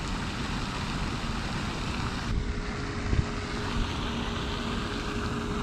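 Wind rumbling and buffeting on the microphone, with a faint steady hum that joins about two seconds in.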